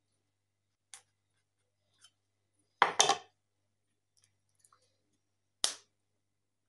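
Kitchen knife cutting open a thin plastic container and the plastic being pulled off the mortadella inside. There is a faint click about a second in, two loud strokes close together about three seconds in, and one sharp stroke near the end.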